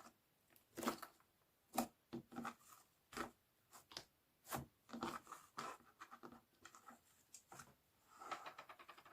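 Slime being worked by hand, giving irregular sticky clicks and pops, with a quick run of crackling near the end.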